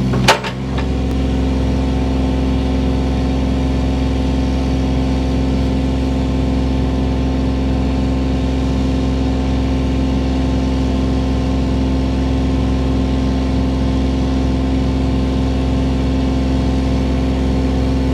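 Engine of a digging machine running steadily at a constant speed, with a brief knock just after it begins.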